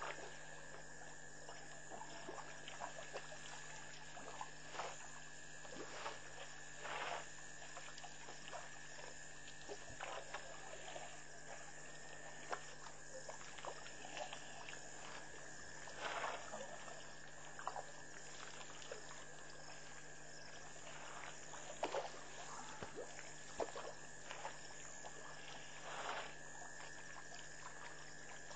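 African bush elephants drinking at a waterhole: irregular splashes and gurgles of water as trunks dip in and pour, every second or two, over a steady high-pitched background hum.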